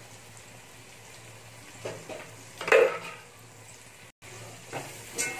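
Tomatoes and spices sizzling faintly in an aluminium pot, with two metal clanks of a utensil knocking against the pot about two and three seconds in, the second louder. Near the end a fork scrapes and knocks in the pot as the masala is stirred.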